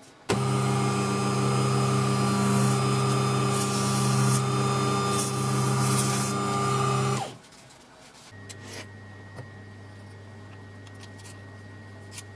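Small wood lathe motor running steadily with a hum, with short hissy rubbing as a paper towel works CA finish onto the spinning zebrawood handle. The motor is switched off about seven seconds in and winds down, leaving a faint low hum and a few light clicks.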